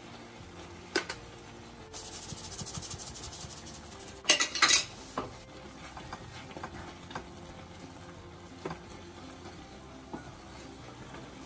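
Wooden spatula stirring Maggi noodles in a nonstick frying pan, knocking and scraping against the pan. There is a short hiss early on, and the loudest knocks come in a quick cluster a little after four seconds in, followed by lighter, scattered taps.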